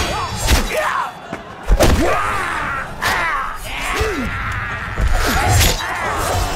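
Film battle-scene soundtrack: a series of heavy thuds and sword impacts, the loudest a little under two seconds in, with soldiers shouting and grunting.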